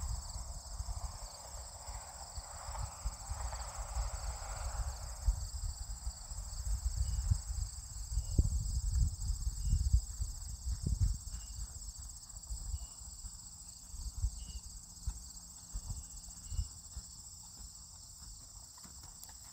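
A horse's hooves thudding dully on grass turf as it moves around the arena, loudest about halfway through. A steady high chorus of insects runs underneath.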